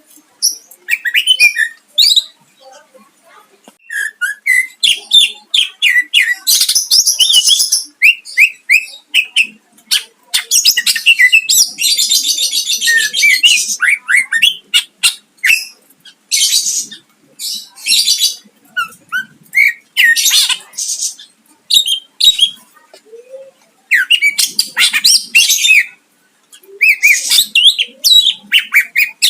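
Greater green leafbird (cucak ijo) singing continuously: a fast, varied run of short whistled chirps and trills, broken by harsh, dense rattling phrases, the longest lasting about three seconds near the middle.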